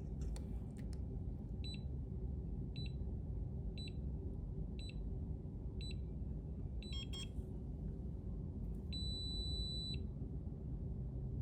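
Electronic keypad door lock beeping during a factory reset: five short high beeps about a second apart while the reset switch is held, a quick flurry of beeps, then one long beep of about a second near the end. A low steady hum lies underneath.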